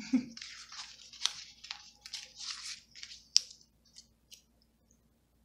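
Paper handling on a planner page: a quick run of short scratching and rustling strokes, with a few sharp clicks, the loudest about a third of the way in, dying away in the second half.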